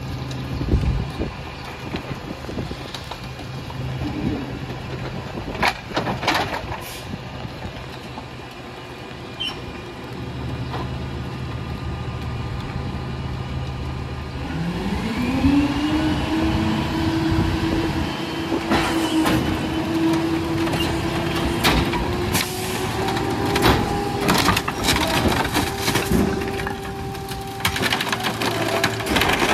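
Diesel engine of a Pak-Mor rear loader garbage truck idling. About halfway through it speeds up to a steady higher pitch as the hydraulic packer cycles, and wood debris cracks and snaps as the blade crushes it into the hopper.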